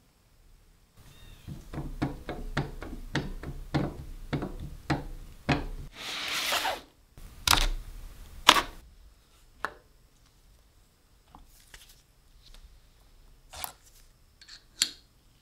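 Hand-handling sounds on a wooden workbench. A run of quick knocks and clicks is followed by a short scrape, then two sharp snaps as the plastic latches of a screwdriver-bit case are thumbed open, and a few scattered light clicks near the end.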